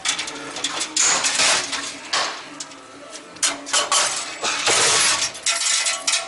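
Metal engine parts clinking and clattering in irregular knocks and rattles as they are handled for the hot tank, with a longer hissing rush about five seconds in.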